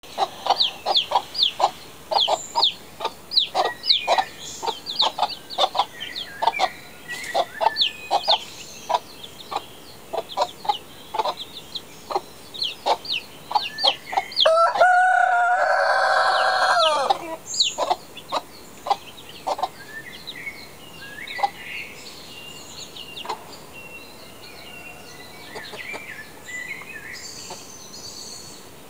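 Chicks peeping in quick, short calls, several a second, thinning out and fading in the second half. About halfway through, one loud, long crow runs for about two and a half seconds.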